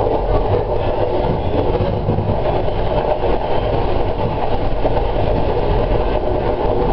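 Train running along the track: a steady engine drone mixed with the rolling noise of the wheels on the rails, heard from the front of the train.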